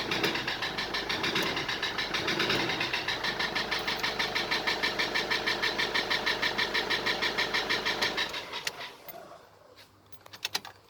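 Toyota Hilux D4D diesel engine idling with a fast, even rhythmic knocking clatter, which the owner puts down to engine oil run dry through a leak. The engine is switched off about eight seconds in, and a few light clicks follow near the end.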